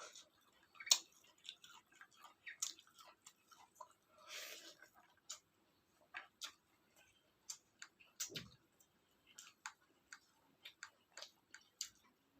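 Close-up mouth sounds of a person chewing soft food, rice with curry: wet smacks and clicks at irregular intervals, with a brief breathy hiss about four seconds in.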